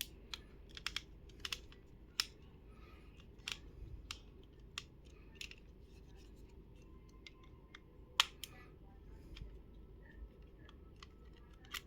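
Scattered small clicks and taps of a precision screwdriver against a Nokia N70's plastic casing and screws as the case screws are taken out, with the sharpest clicks about 2, 3.5 and 8 seconds in.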